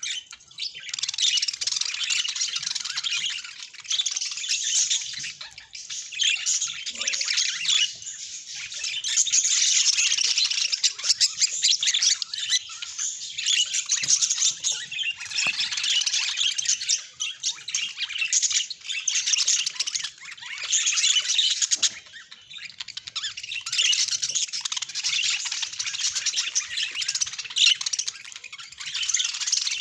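Budgerigars chattering and warbling in a dense, rapid stream of high chirps and squawks, with a few brief lulls.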